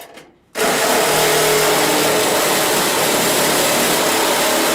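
A handheld power tool starts suddenly about half a second in and runs steadily at full speed with a loud, even noise.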